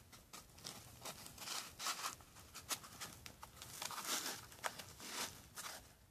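Handling noise from a stainless steel watch bracelet and its foam pillow: small clicks of metal links with short rustling scrapes as the watch is pushed into a foam-lined case slot.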